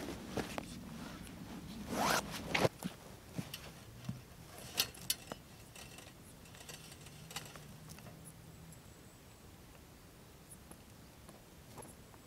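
A zipper on a bag of camping gear pulled shut with a quick zip about two seconds in, the loudest sound, followed by scattered light clicks and rustles as straps and gear on the rucksack are handled.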